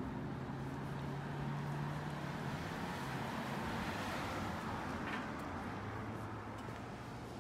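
A car passing along the street: its tyre and engine noise swells to a peak about four seconds in and fades away, over a steady low engine hum.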